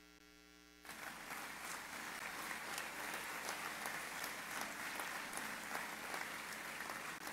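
Crowd applauding: after a near-silent first second with a faint steady hum, many hands start clapping at once and keep going.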